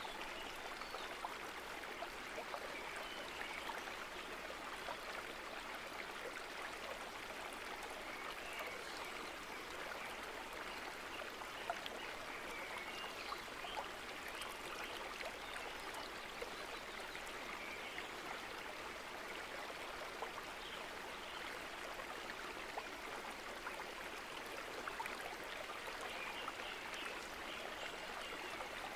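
Steady rushing, trickling sound of running water, like a flowing stream, unchanging throughout.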